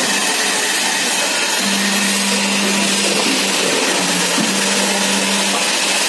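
Roof-sheet crimp-curving machine running, a steady mechanical whir and hiss as the profiled metal roofing sheet feeds through its crimping rollers. A low hum cuts in and out a few times.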